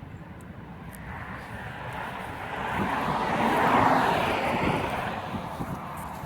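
A vehicle passes by. Its noise swells to a peak about four seconds in, then fades away.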